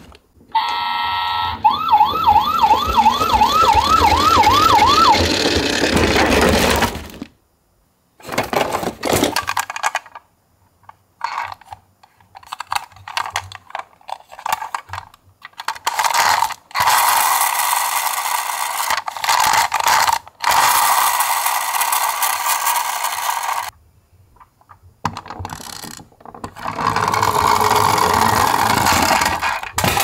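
A toy ambulance's electronic siren sweeping rapidly up and down, about three times a second, for a few seconds near the start. It is followed by stretches of clattery mechanical noise broken by short silences.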